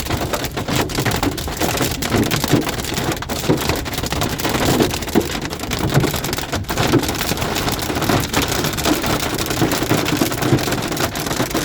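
Hail and heavy rain drumming on a car's roof and windshield, heard from inside the cabin: a loud, steady clatter of many small impacts.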